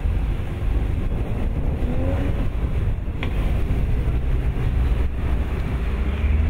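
A convoy of sports cars driving off one after another, their engines rising in pitch as they pull away and pass close by. A short click sounds about three seconds in.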